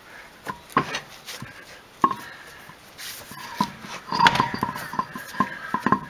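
Irregular metallic clinks and knocks, some with a short ring, from a car wheel and jack being worked to line the wheel up with the hub. They come most thickly in the second half, over the rustle of clothing rubbing against the microphone.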